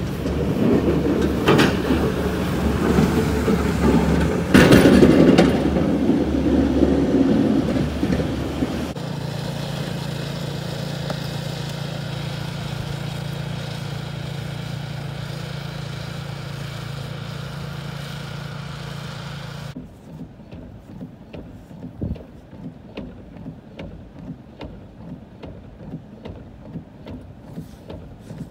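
A snowplow truck's diesel engine and steel blade scraping along the snowy road, loudest about four seconds in. It gives way at about nine seconds to the steady hum of a walk-behind snowblower engine. From about twenty seconds on it turns much quieter, with short repeated scraping strokes of snow being cleared off a car.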